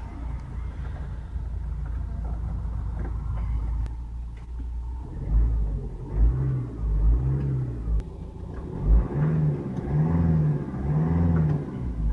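Renault Espace engine idling, then revved in a run of about six short throttle blips in the second half, each rising and falling in pitch.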